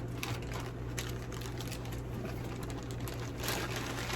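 Rustling and crinkling of packaging being handled while a dog bed is unboxed, in short irregular bursts, over a steady low hum.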